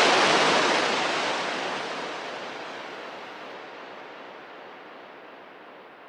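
A wash of ocean surf, fading out steadily, its hiss dulling as it fades.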